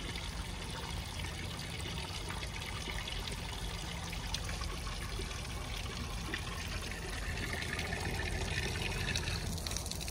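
Water running steadily from a hose into a trough, a little louder towards the end.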